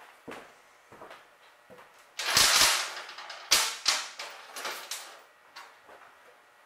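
Small steel bolts and nuts being gathered and set down on a steel workbench. A short rasping scrape about two seconds in is the loudest sound, followed by a few sharp metallic clicks and lighter clinks.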